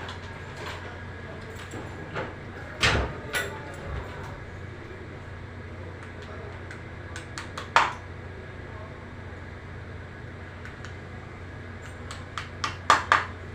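Scattered sharp knocks and clicks, a few single ones and then a quick cluster near the end, over a steady low hum.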